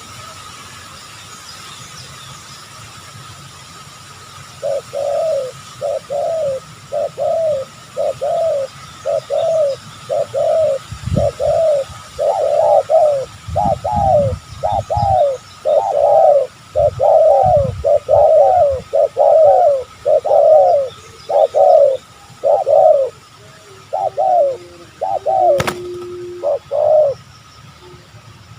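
Spotted dove cooing over and over, about one coo a second, starting a few seconds in and stopping near the end. A few low thuds come in the middle, and a sharp click near the end.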